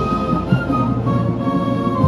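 High school marching band playing, holding sustained chords with a bright top note that moves down about a second in, over a dense low end.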